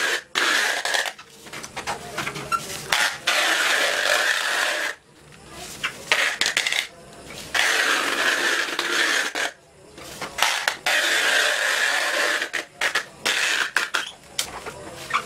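Adhesive tape being pulled off its roll in several long screeching pulls, each a second or two, with short pauses and a few clicks between them, as the tape is run along a long pole to wrap it.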